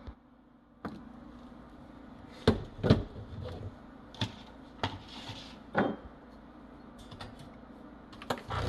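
Metal clicks and knocks of an espresso machine's portafilter and tamper being handled, the loudest pair of knocks about two and a half seconds in as the portafilter is locked into the Breville's group head, then a few lighter clicks of its buttons. The machine's pump hum starts right at the end.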